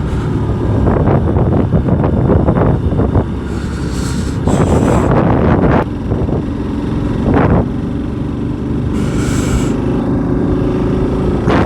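Motorcycle engine running steadily under way, with gusts of wind buffeting the microphone a few times.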